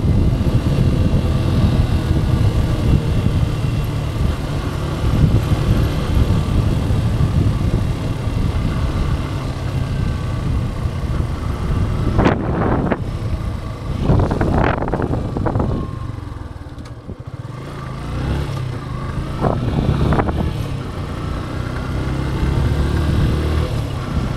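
Yamaha FZ 2.0's single-cylinder engine running at road speed under the rider, with a steady low rumble mixed with wind and road noise. The sound surges a few times about halfway through and dips briefly about two-thirds of the way in.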